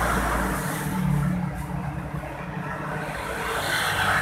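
Road traffic passing on a wet street. A truck's deep engine rumble dies away in the first second, then motorcycles come past near the end with a rising engine note and tyre hiss on the wet road.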